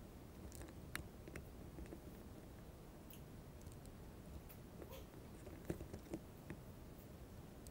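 Faint chewing of a mouthful of dry saltine crackers, with a handful of small, sharp clicks and crackles scattered through it.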